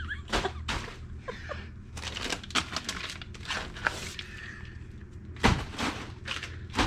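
Scattered knocks, thuds and rustles of food packages being handled and set down, the loudest about five and a half seconds in, over a steady low hum.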